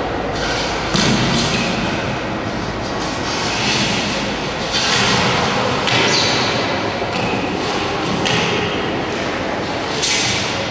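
A dancer's body, gloves and shoes scraping and thumping on the floor. It is a steady run of rough scrapes that surge every second or two, with a dull thump about a second in.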